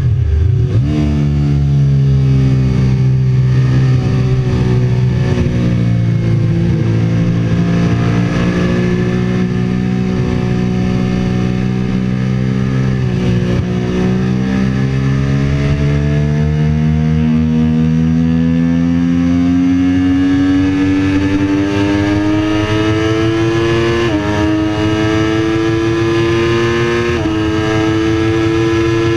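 Sport motorcycle engine at track speed, heard from on board with wind rush. The engine note drops sharply at the start as the bike slows from about 200 km/h into a corner, holds low and steady through the turn, then climbs steadily under acceleration, with two upshifts near the end where the pitch steps down and rises again.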